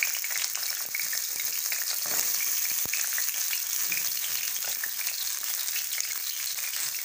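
Pieces of pointed gourd (parwal) sizzling in hot mustard oil in a kadhai, just dropped in to fry. It is a steady hiss scattered with small crackles and pops.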